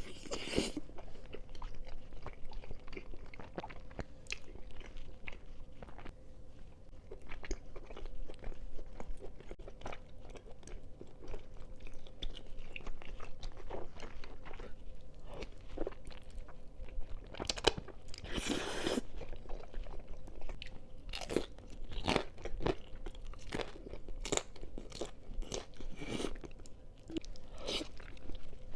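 A person eating close to the microphone: steady chewing with crisp, crunchy bites throughout, the loudest crunches coming about two-thirds of the way in.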